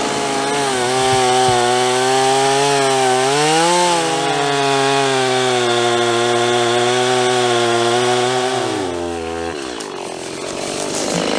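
Two-stroke Stihl chainsaw running at high revs while cutting through a dead tree's stump, its pitch holding steady under load with a brief rise about four seconds in. About nine seconds in the revs drop and the saw falls away.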